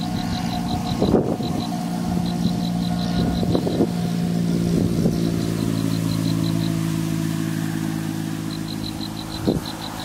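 An engine running steadily as a low, even hum, with a few short knocks. A rapid, regular high-pitched ticking comes and goes above it.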